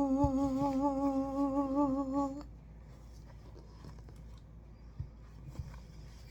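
A person humming one long held note with a slight waver, stopping abruptly about two seconds in. It is followed by quiet room tone with a couple of faint clicks.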